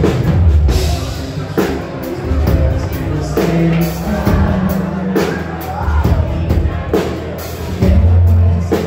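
Live band music on stage: drum kit and bass guitar keep a steady beat under electric guitars and keyboard, with a male singer's voice over them at times.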